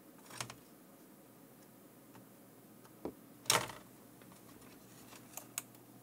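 A few light clicks and taps of small hand tools and a tiny push-button switch being handled against a circuit board during soldering, the loudest about three and a half seconds in.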